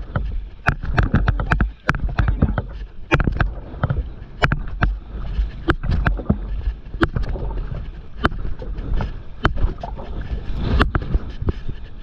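Stand-up paddleboard on the sea: irregular sharp knocks and water splashes, about one or two a second, over a low wind rumble on the microphone.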